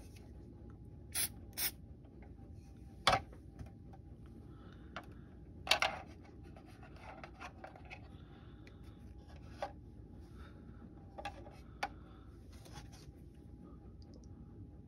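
Small plastic model-kit parts being handled and pressed into place by hand: scattered clicks, taps and brief rubbing, the sharpest click about three seconds in and a cluster of them near six seconds, over a faint steady hum.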